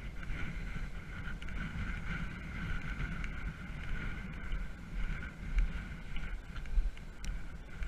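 Electric RC truck driving over grass, its motor and drivetrain giving a steady whine. Wind buffets the microphone with a low rumble, in gusts that are loudest a little past halfway.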